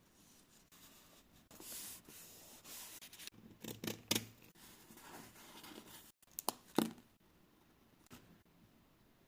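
Paper being torn and handled by hand for scrapbooking, in several short ripping bursts that stop about seven seconds in.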